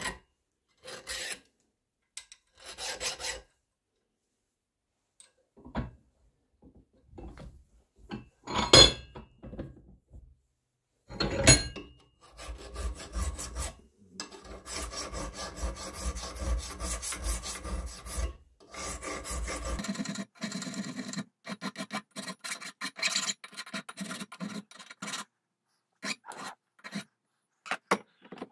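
Hand file deburring the sharp edges of a small milled metal peep-sight part: short separate strokes at first, then a run of quick back-and-forth strokes lasting about eight seconds. Two sharp knocks stand out about a third of the way in.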